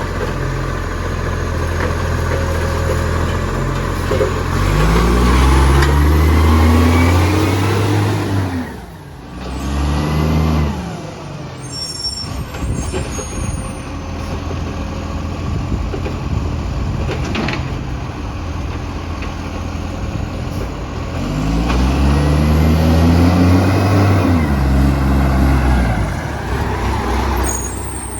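Garbage truck diesel engine with an exhaust leak, idling and twice revving up and settling back down, the pitch rising and falling each time.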